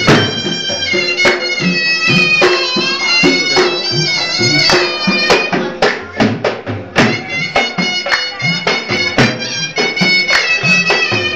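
Folk dance music: a shrill double-reed pipe plays a wavering melody over sharp drum beats and hand claps.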